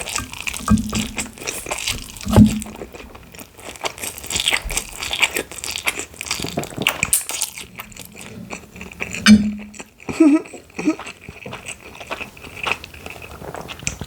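Close-up chewing and crunching of spicy instant noodles, with wet mouth clicks throughout. A few short, loud throat sounds from the eater come near the start, about two and a half seconds in and about nine seconds in.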